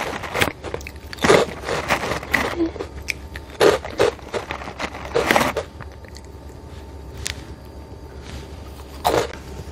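Crunchy shrimp-flavoured crackers bitten and chewed close to the microphone. A handful of crisp crunches come in the first six seconds, then there are a few quieter seconds of chewing, and one more crunch comes near the end.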